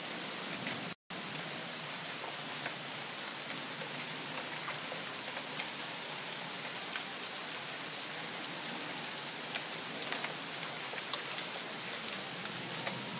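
Hail and rain falling steadily: a dense, even hiss with scattered sharp ticks of pellets striking. The sound drops out for an instant about a second in.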